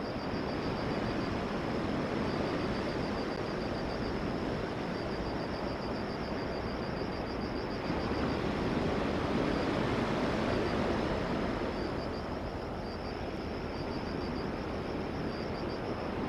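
Steady rush of ocean surf breaking on the beach, mixed with wind, swelling a little about halfway through. A high, rapid pulsing chirp comes and goes above it.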